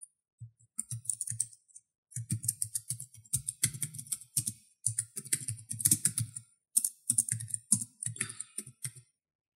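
Typing on a computer keyboard: quick runs of key clicks with short pauses, stopping just before the end.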